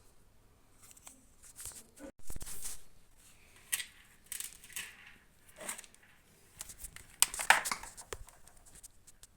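Hands working on a washing machine's drain pump assembly: intermittent plastic scrapes, clicks and rustles, with the loudest cluster about seven and a half seconds in.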